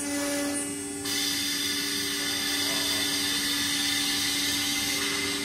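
Automatic-loading CNC router running: a steady machine hum with a high whine, joined about a second in by a louder, even hiss.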